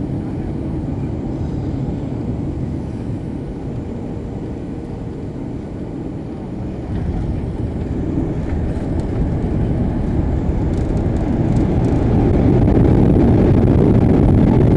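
Cabin noise of a Boeing 737-800 landing: a steady low rumble of engines and airflow that grows louder at about seven seconds in and again from about twelve seconds.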